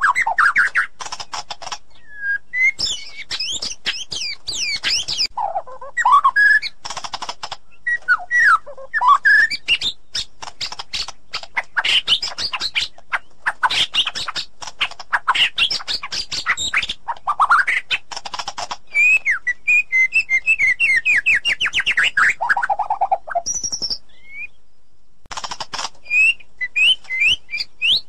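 White-rumped shama (murai batu) singing a long, varied song. Clear sliding whistled notes alternate with fast, rattling bursts of rapid-fire notes, and there is a pause of about a second near the end.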